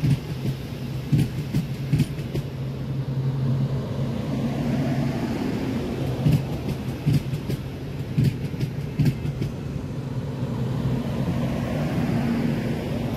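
Frecciarossa high-speed electric train rolling past along the platform: a steady low hum, with the wheels clacking over rail joints again and again.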